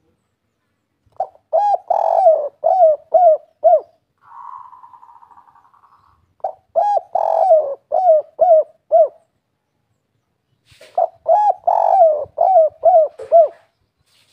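Spotted dove cooing its 'kuk 3' song three times, each phrase a run of about six quick low coos. A faint buzzing rattle fades out between the first two phrases.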